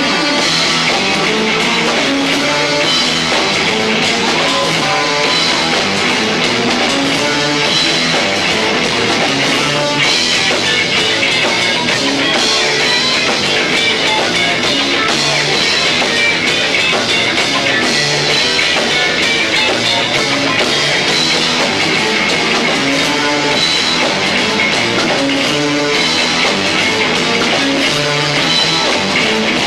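Live rock band playing loud, with electric guitar, bass and two drum kits, captured through a 1990s camcorder's built-in microphone, so the sound is lo-fi.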